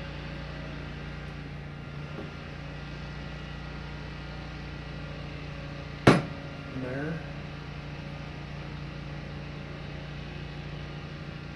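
A single sharp hammer blow on a punch held against a metal spoon in a vise, about six seconds in, center-punching the spot where a jump-ring hole will be drilled. A steady low hum runs underneath.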